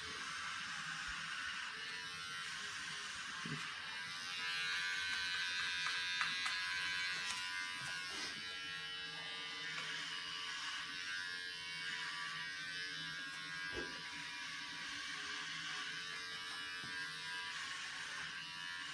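Electric hair clippers buzzing steadily as they cut hair, with a few faint knocks.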